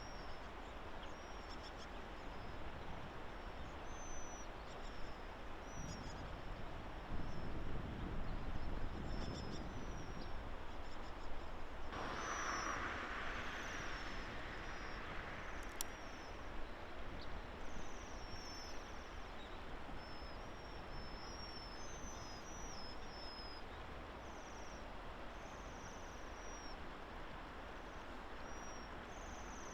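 A flock of waxwings giving many short, thin, high trilling calls that overlap one another, over a steady outdoor hiss. A low rumble rises and fades about seven seconds in, and a brief patch of louder hiss comes around twelve seconds in.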